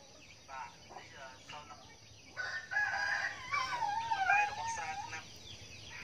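A rooster-like crow: one long call starting about two and a half seconds in, held at first and then wavering and falling over nearly three seconds, after a few short faint sounds.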